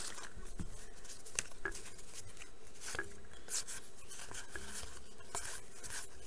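1989 Bowman baseball cards being flipped through by hand, cardboard sliding and ticking faintly against cardboard in scattered, soft strokes.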